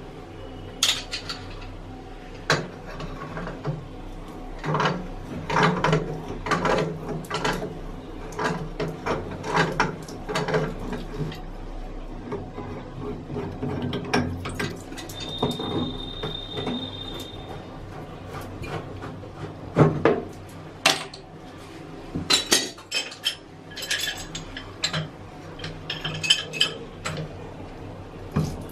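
Metal clinking, clicking and scraping as a slip-joint wrench and a hand work the old corroded brass tap on the toilet cistern's wall supply pipe, with a brief high squeak a little past halfway and a few sharper knocks later on.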